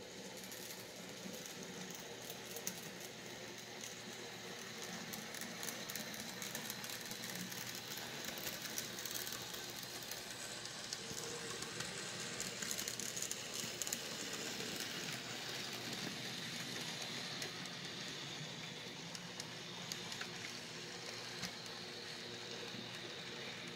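Model trains running on layout track: a steady rolling rattle from the wheels and motors, with frequent small clicks.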